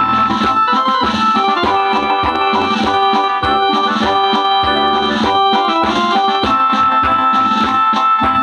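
Instrumental accompaniment to a choral song: sustained keyboard-like chords changing every second or so over a steady beat.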